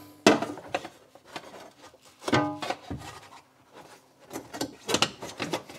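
Sheet-metal shelf clanking and scraping against the car's metal floor pan as it is worked into place, with a loud clank just after the start, a ringing clank about two and a half seconds in, and further knocks near the end.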